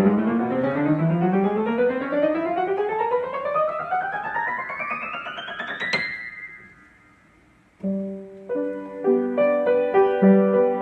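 Yamaha No. 1 (U1) upright piano played in a long rising run of notes up the keyboard, ending on a high note about six seconds in that rings and fades away. About two seconds later, chords and a melody in the middle register begin.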